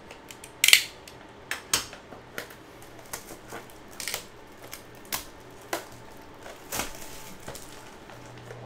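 Plastic wrap and cardboard of a trading-card blaster box being opened and handled: an irregular string of sharp crinkles and taps, the loudest about a second in.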